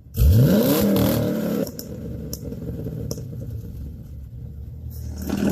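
Car engine revving: a sharp climb in pitch about a quarter second in, then running on at a steady, higher speed, starting to build again near the end.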